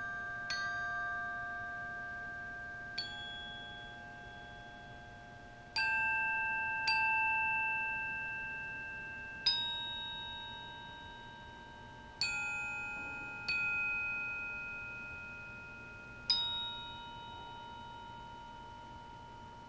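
Glockenspiel played with four mallets: sparse chords of several bell-like notes struck together, eight in all at irregular gaps of one to three seconds, each left to ring and fade slowly under the next.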